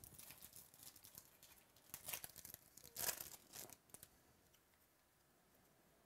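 Faint rustling and scraping of baseball cards as a stack is flipped through by hand, with several quick card-against-card slides in the first four seconds, then near silence.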